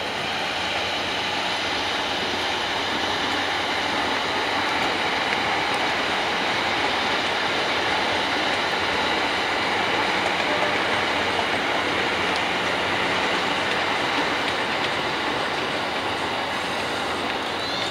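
Miniature ride-on electric trains running on their narrow-gauge track, a steady rolling rumble of wheels on rails.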